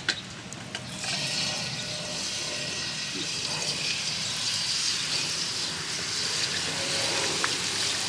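Hot oil in a wok sizzling hard as a whole raw chicken is lowered into it. The sizzle jumps up about a second in and then bubbles steadily, after a few light clicks at the start.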